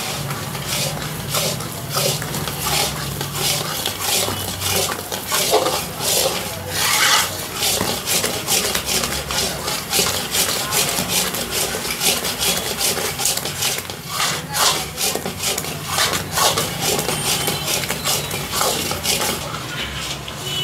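A long metal spatula stirs and scrapes thick mysore pak mixture around a metal kadai, in rhythmic strokes about three a second.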